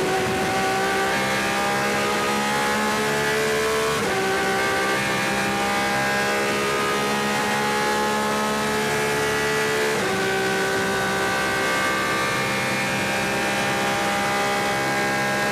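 Porsche 911 RSR's flat-six racing engine at full throttle, heard from inside the cockpit. The revs climb steadily with a sudden drop for an upshift about four seconds in and another about ten seconds in.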